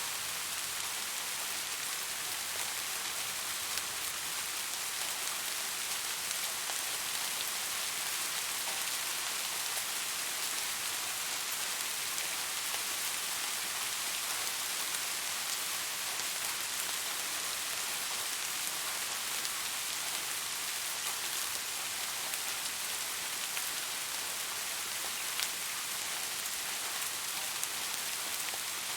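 Steady rain falling on surfaces: an even, high hiss made up of countless fine drop patters, with no thunder.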